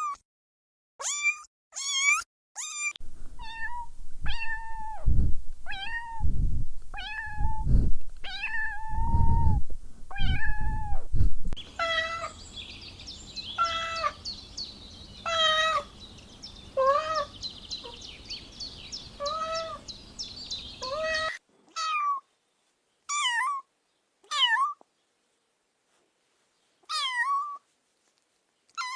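Kittens meowing over and over in short, high calls, in spliced clips with abrupt silent gaps between some of them.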